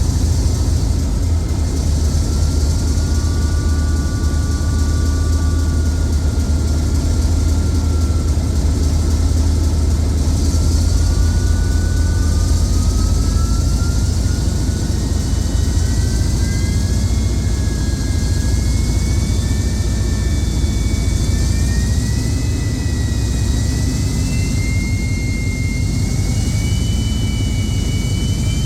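The twin Napier turbochargers on a Class 37 locomotive's English Electric 12CSVT V12 diesel whistle at about half power, over the engine's steady low rumble, heard inside the loco. Two or more whistle tones climb slowly in pitch from about three seconds in to the end.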